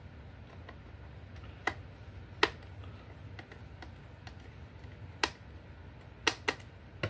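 Sharp, irregular clicks and knocks, about six of them, from the plastic base of a DIY LED lamp kit being closed and screwed shut, over a low steady hum.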